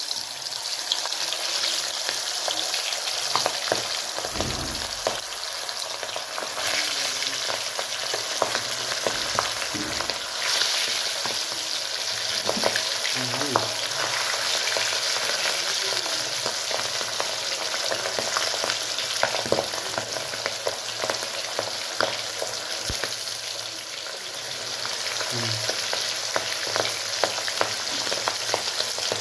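Masala-marinated fish pieces sizzling in hot oil as they fry for pakoras, a steady dense sizzle with scattered short clicks.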